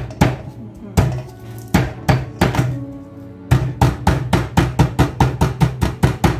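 A cleaver striking a bundle of lemongrass against a wooden cutting board: a few spaced whacks, then a quick run of about four strikes a second from about halfway. Background music plays under it.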